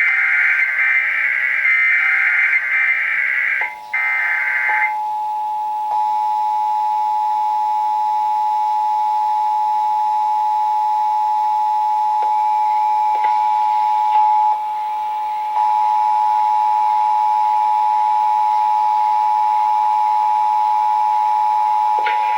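Emergency Alert System test signal: the buzzing digital data bursts of the SAME header end about five seconds in, and the steady two-tone EAS attention signal (853 and 960 Hz together) then sounds unbroken for the rest.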